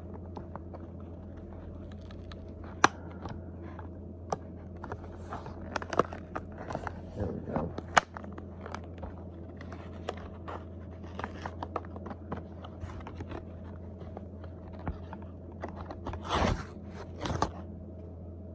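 Plastic blister packaging of a boxed folding knife handled and turned over: scattered clicks and crinkles, two sharp snaps, and two louder scraping rustles near the end.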